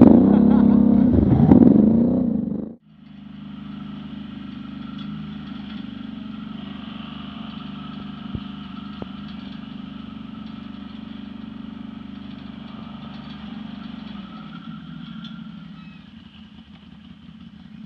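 ATV engines revving hard, the pitch swinging up and down, for about the first three seconds; the sound then cuts off abruptly and gives way to a quieter, steady ATV engine note at cruising speed on a dirt trail.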